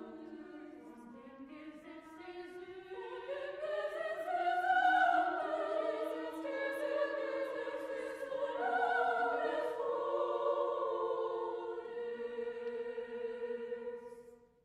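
Classical choral music: several voices sing long held lines together, fading out near the end.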